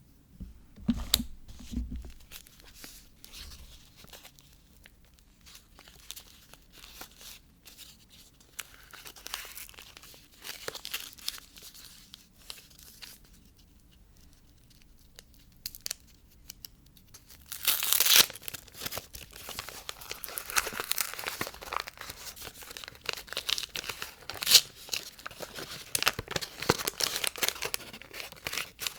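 Soap packaging being unwrapped by hand: scattered rustles and clicks, then about two-thirds of the way through a loud tear of the wrapper, followed by steady crinkling.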